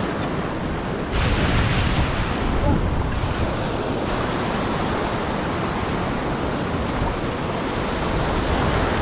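Ocean surf washing up the beach in the shallows, with wind rumbling on the microphone. The wash swells louder about a second in and eases back about four seconds in.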